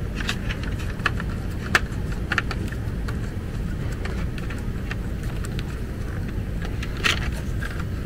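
Small scattered clicks and ticks of thermostat wire and a small hand tool being worked into a low-voltage relay-panel terminal, over a steady low rumble.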